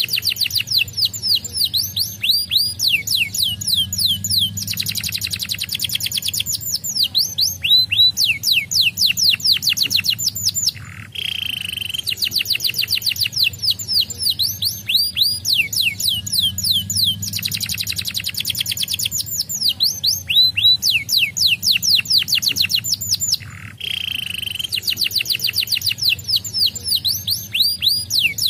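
Domestic canary singing a long, fast song of rapid downward-sweeping whistled notes and rolling trills. It pauses only briefly, twice.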